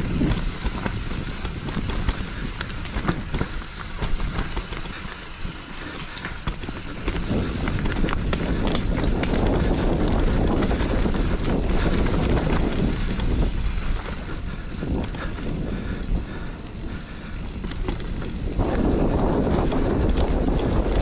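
Mountain bike ridden down a dirt forest singletrack: tyres on the ground, rattles and knocks from the bike, and wind rushing over the handlebar camera's microphone. It gets louder from about eight seconds in.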